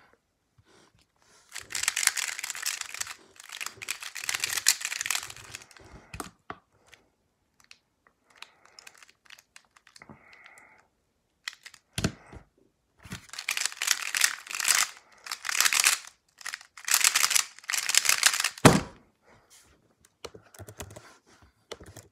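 Square-1 speedcube being turned fast by hand: two long bursts of rapid plastic clacking and scraping as its layers are twisted and sliced, with softer scattered clicks between them. A sharp knock comes about twelve seconds in, and another ends the second burst.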